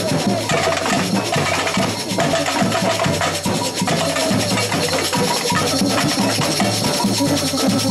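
Samba percussion band playing a dense, steady drum rhythm.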